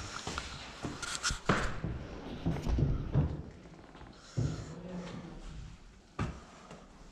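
Footsteps and handling noise of people moving through an empty building, with scattered sharp knocks and clicks and a short low-pitched sound about four and a half seconds in.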